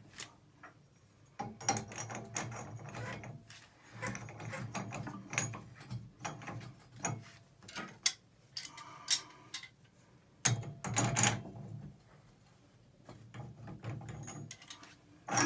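Irregular metallic clicking and scraping of a wrench turning on a Price Pfister tub and shower valve stem through the tile opening. It comes in short bursts with pauses.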